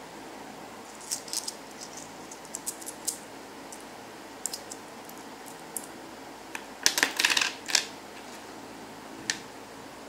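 Small metal coins (Malaysian 10 sen pieces) clinking against one another as they are handled in the palm and stacked: scattered light clinks, then a quick run of clinks about seven seconds in, over a steady hiss.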